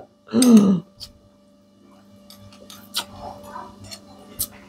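A brief spoken word, then quiet eating sounds: scattered faint clicks and small smacks over a steady low hum.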